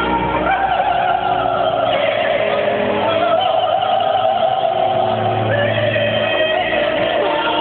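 Live song played through an arena sound system, with a voice holding long notes that step up in pitch, over a full backing.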